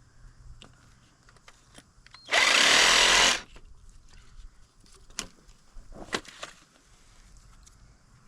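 A power tool runs for about a second, cutting through plastic water-line pipe. A few sharp clicks and knocks of handling follow.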